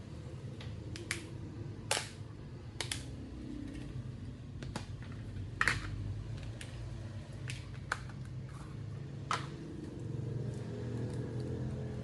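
Scattered sharp plastic clicks and taps, about ten of them, the loudest near the middle, from the snap-on back cover of a Huawei Y6 II being unclipped and set down and a plastic screwdriver-set case being handled on the desk, over a steady low hum.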